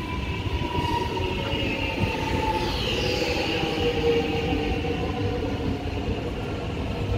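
X'Trapolis 100 electric train pulling in along the platform: a steady rumble of wheels and running gear, with a motor whine that falls slowly in pitch as it slows, and a brief high squeal about three seconds in.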